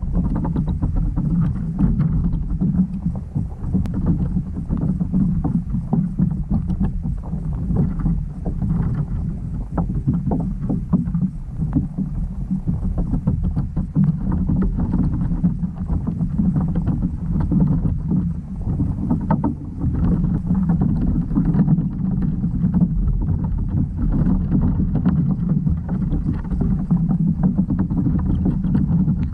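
Underwater noise picked up by a GoPro through its waterproof housing: a steady low rumble with many small clicks and crackles scattered throughout.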